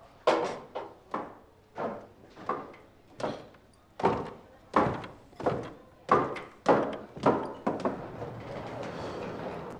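High-heeled shoes stepping down wooden stairs at an even walking pace, a dozen or so sharp knocks, each dying away quickly. A steady rushing background takes over near the end.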